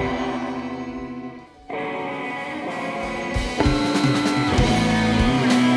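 Live band music: a held guitar chord rings out and fades to a brief break about a second and a half in. The guitar then comes back in, and the drums rejoin about halfway through.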